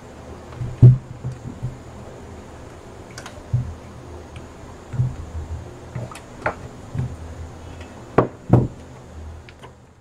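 Handling knocks and clicks as a washing-machine control board is turned over and set down on the bench, its wires and test clips moved. The loudest knocks come about a second in and twice close together near the end.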